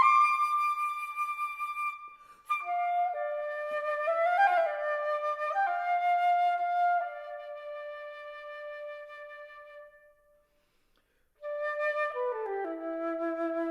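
Solo flute playing long held notes that fade away, with a brief silence about ten seconds in. Then a quick run of notes steps down and climbs back up.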